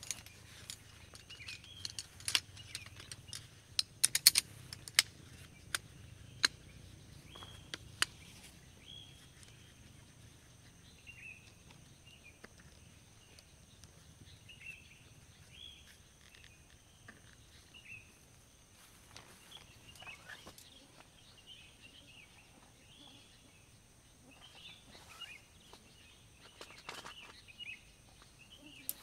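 A folding camp chair's aluminium frame being assembled: sharp clicks and clacks in the first several seconds as the poles snap together and the seat is fitted. After that, birds chirp over quiet forest ambience, with occasional rustling.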